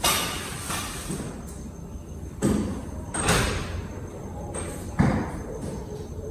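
A few sudden thumps and knocks, about four over several seconds, over a steady low background rumble.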